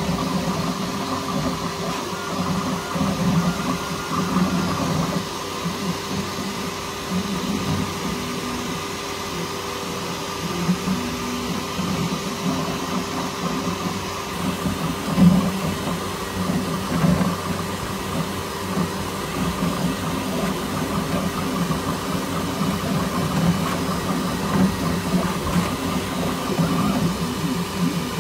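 Bambu Lab X1 Carbon CoreXY 3D printer running a print: a steady fan hum with the stepper motors whirring irregularly underneath as the toolhead moves.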